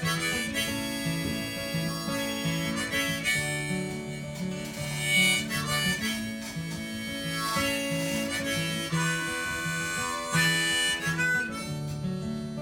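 Harmonica solo of held, changing notes over a strummed acoustic guitar, an instrumental break in a folk song.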